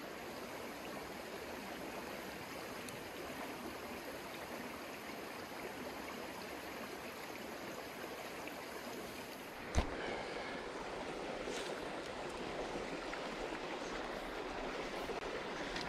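Steady rush of a flowing creek running high after rain. A single sharp knock about ten seconds in, after which the water sound is a little louder.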